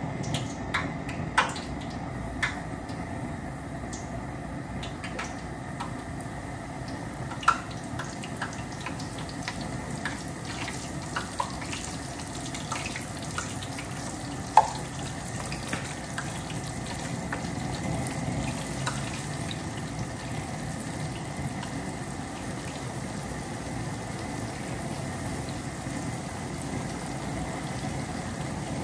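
Flour-dredged ribs deep-frying in hot grease in a large aluminum pan: a steady bubbling sizzle with scattered sharp pops, the loudest about 7 and 15 seconds in.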